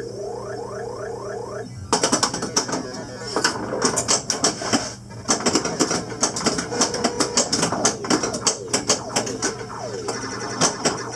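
Williams Black Knight pinball machine in play: a quick run of rising electronic sound effects, then rapid clacking of flippers, solenoids and the ball striking targets and bumpers, over the machine's electronic tones.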